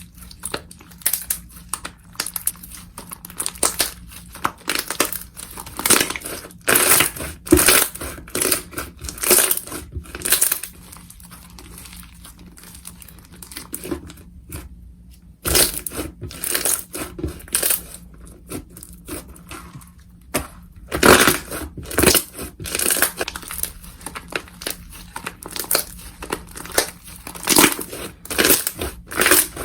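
Slime being squeezed and worked by hand, making irregular clusters of crackling, popping clicks, with a quieter stretch in the middle.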